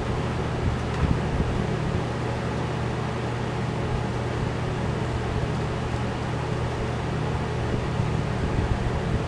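Steady low mechanical hum, like a fan running, with a few light knocks of metal engine parts being handled.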